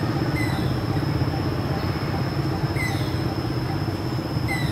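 Steady low hum like an idling engine, under a thin steady high whine, with a short falling squeak repeated about every two seconds.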